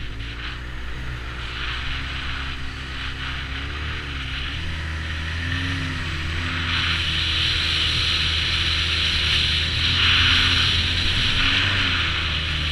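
2009 Arctic Cat Z1 Turbo snowmobile's 1,056 cc turbocharged four-stroke engine running under way, with a few tones rising and falling in pitch as the throttle changes. A rushing hiss grows louder past the halfway point.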